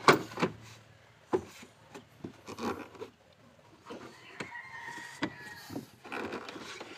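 Plastic boot sill trim being pushed and snapped back into place: a series of sharp clicks and knocks. A rooster crows once in the background about four seconds in.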